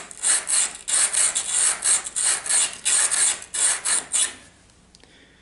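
Carbide router bit's flat face rubbed back and forth on a water-wetted diamond sharpening stone: a quick, even run of rasping strokes, about four a second, stopping about four seconds in. The flute's flat back is being honed to restore a dulled cutting edge.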